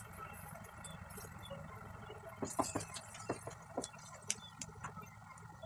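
Green chillies frying in oil in a nonstick pan, a low steady sizzle, with a wooden spatula knocking and scraping against the pan in a run of sharp clicks from about two and a half seconds in.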